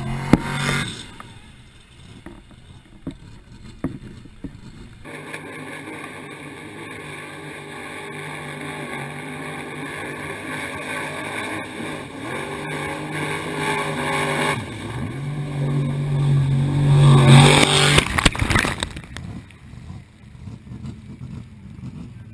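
Formula off-road jeep's engine running hard as it skims across the water, growing steadily louder as it approaches. Near the end the note dips and climbs again, then peaks with a loud rush as it passes close by and fades.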